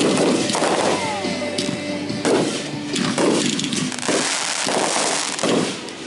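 Fireworks going off in a rapid, uneven barrage of loud bangs, often two or three a second, each trailing off into a brief echoing crackle.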